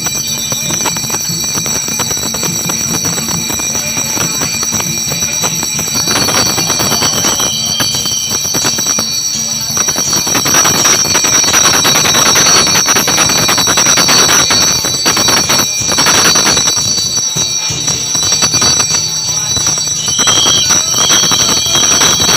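Loud crowd din of many voices and jostling, growing louder about halfway through, with a steady high-pitched ringing over it.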